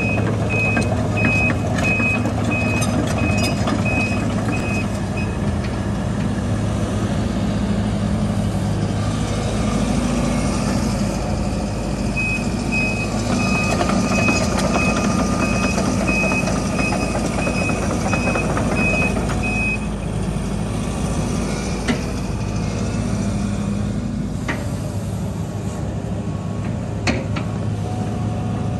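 Case CX130C excavator's 3-litre Isuzu turbo-diesel running steadily while the machine tracks and works its boom, with its warning alarm beeping, a high beep about one and a half times a second, over the first five seconds and again for about eight seconds in the middle. A few sharp metallic knocks come near the end.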